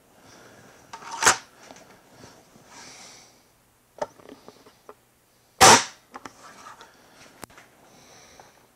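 Hatsan Striker 1000S .177 break-barrel air rifle being worked and fired: a loud clack as the barrel is handled about a second in, then, after a pause and a small click, a louder, short crack of the shot a little past the middle, followed by faint clicks and handling noise.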